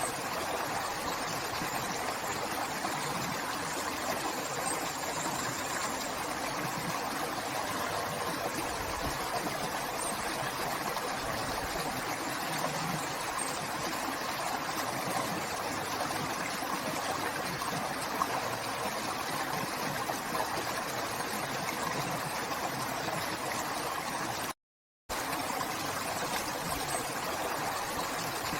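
River water flowing in a steady, even rush. It cuts out completely for about half a second near the end.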